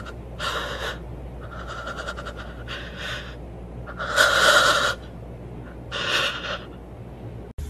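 A series of five loud breathy puffs or snorts, spaced about a second apart, over a low steady hum; the one about four seconds in is the loudest and longest.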